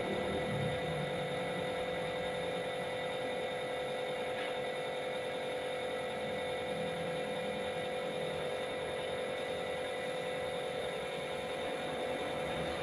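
Compressed-air spray gun hissing steadily as it sprays clear gloss melamine lacquer, over the constant hum and whine of the air compressor feeding it.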